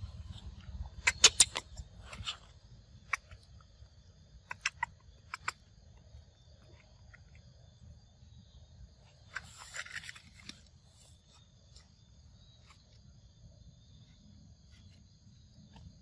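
Steady high drone of forest insects, with a cluster of sharp clicks or taps about a second in and a few single clicks over the next few seconds. A short rustle comes near the middle.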